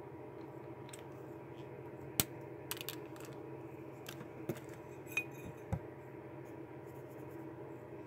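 Permanent markers being handled and set down on a table: a few short, sharp plastic clicks and clatters, the sharpest about two seconds in, over a steady low hum.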